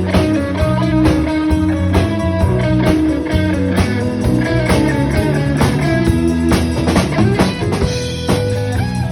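Band playing a song: guitar over a steady drum-kit beat.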